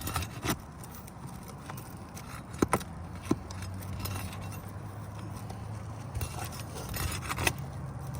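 Brittle roof shingles being lifted and bent by hand: scattered sharp cracks and scrapes, a cluster a couple of seconds in and more near the end. The shingles are so brittle that they crease as they are lifted, over a low steady hum.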